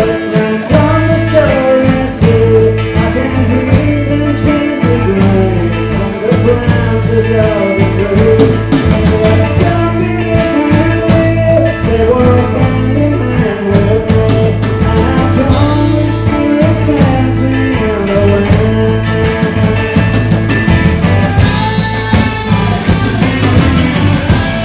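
Live rock band playing: two electric guitars, bass guitar and a drum kit, with a lead vocal singing over them.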